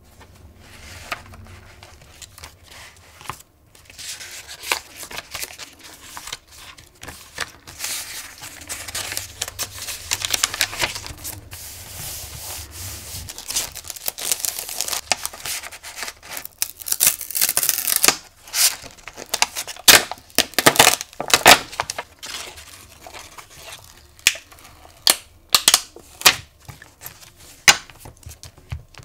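Paper and plastic handling on a traveler's notebook: pages rustle and a clear plastic packet crinkles. In the last third this gives way to a series of sharp taps as a small ink pad is dabbed onto the paper page.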